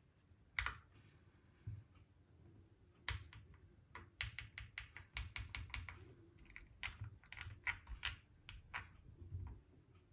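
Typing on a custom Owlab Spring mechanical keyboard with a CNC-machined acrylic case: a single sharp keystroke about half a second in, another a second later, then a steady run of keystrokes, three or four a second, from about three seconds in until near the end.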